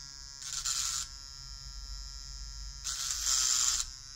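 Hypograph tattoo machine converted into a small rotary file, its motor running with a steady whine. Twice, for about half a second and then for about a second, a louder, harsher rasp comes as the dovetail cutter grinds a sharp metal edge off the workpiece.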